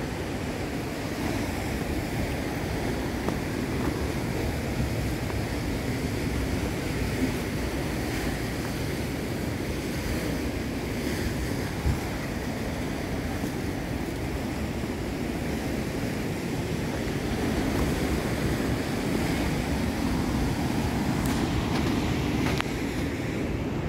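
Ocean surf breaking on a rocky shore: a steady rushing wash that grows a little louder in the second half, mixed with wind buffeting the microphone.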